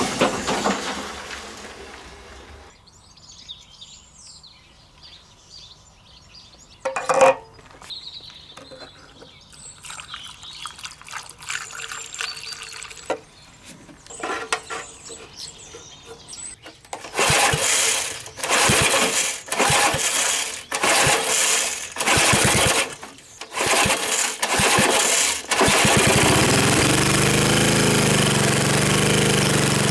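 Briggs & Stratton lawn mower engine being pull-started with a new recoil cord: about eight quick pulls in a row, then it catches near the end and keeps running steadily. Before the pulls there are small handling noises and one sharp knock.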